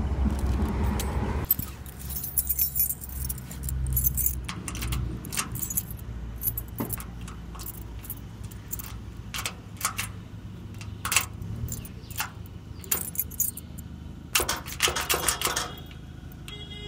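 A bunch of keys jangling and clinking in the hand, in irregular rattles with a dense flurry of clinks near the end, as a key is fitted into a metal door's lock. A low rumble is heard in the first second or so.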